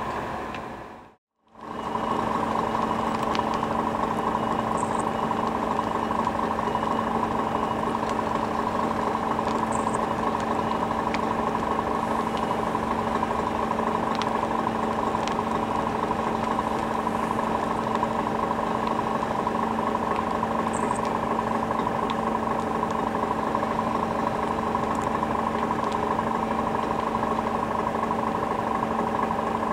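A fire engine's engine running steadily, a constant hum with a steady whine. It cuts out for a moment about a second in.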